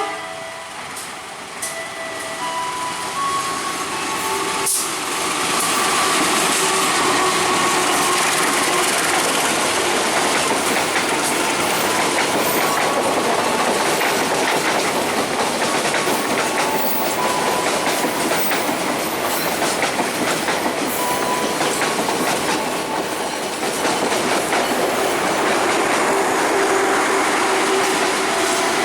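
Train rolling past close by, its wheels clattering over the rail joints; the rolling noise builds over the first five seconds and then stays loud and steady.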